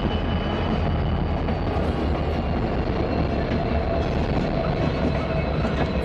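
Norfolk Southern diesel-electric freight locomotives passing at close range, their engines running with a steady, even rumble.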